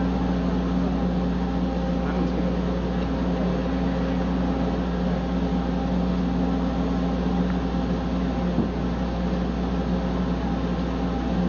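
An engine running steadily: a constant low drone with a steady pitched hum that does not change.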